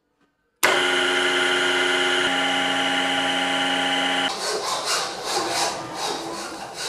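A manual drill-milling machine's motor and gearhead start abruptly and run with a steady multi-tone hum, the tone shifting partway through. About four seconds in this gives way to irregular rustling and rubbing of a plastic-wrapped coffee sachet being handled over a glass.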